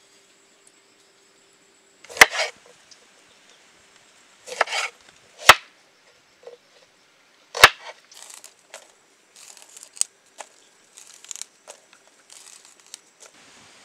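Sharp knocks during food preparation: three single hard knocks a few seconds apart, then a run of lighter clicks and rustling.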